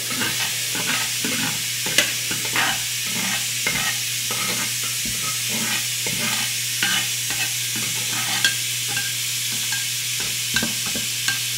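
Chile and tomato sauce boiling in a covered pot on the stove. It makes a steady sizzling hiss with scattered small pops and clicks over a steady low hum.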